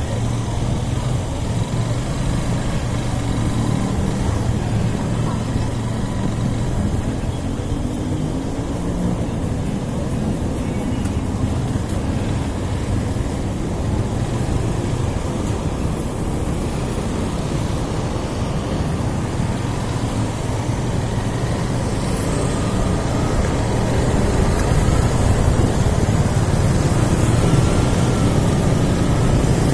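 Motorcycle engine running at low speed in city traffic, with a steady low hum and road noise, heard from the rider's seat; it grows a little louder late on as the bike picks up speed.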